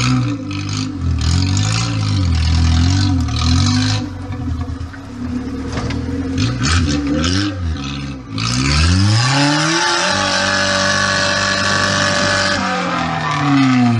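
Off-road 4x4's engine revving up and down again and again, with clattering knocks in the first half, then held at high revs for about four seconds before dropping away near the end.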